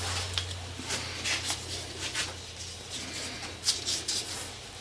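A cloth rubbing over a steel slide from a DeWalt DW733 thickness planer as it is wiped clean, with light handling clicks and taps from the metal bar.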